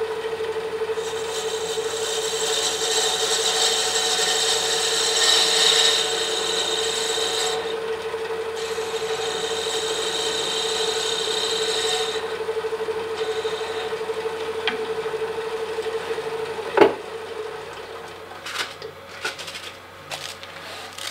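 Robust wood lathe running with a steady hum while a turning tool takes light finishing cuts on the spinning wooden scoop handle, a hissing scrape that breaks briefly in the middle and stops about twelve seconds in. About seventeen seconds in a sharp knock comes and the lathe's hum stops, followed by a few light taps.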